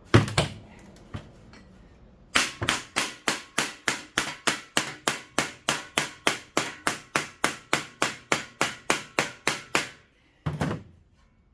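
Hammer blows on the metal of an electric fan motor, a steady run of about three strikes a second for seven or eight seconds, each with a short metallic ring. A few single knocks come before the run and one after it.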